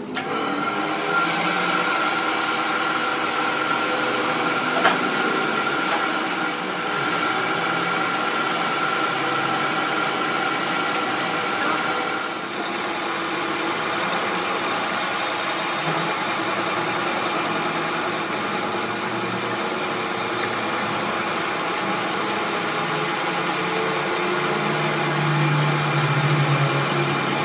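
Large metal lathe running steadily, its gears giving a steady whine, while a turning tool cuts the end of a steel truck axle shaft. A rapid ticking comes in for a couple of seconds around the middle.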